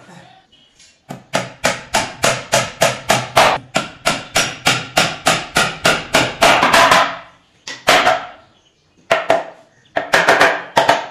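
Hammer driving nails into a plywood shelf panel: a fast run of blows, about four or five a second for some six seconds, then a few shorter bursts of blows near the end.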